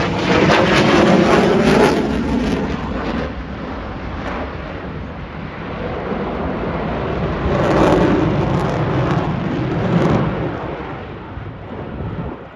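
Aircraft engine noise as a plane flies past, a loud, rough rush of sound that swells about a second in and again around eight seconds in, then eases off near the end.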